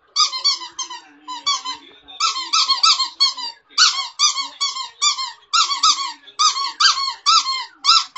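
Puppy squealing: quick high-pitched squeaks, each rising and falling in pitch, in rapid runs of three or four with short gaps between.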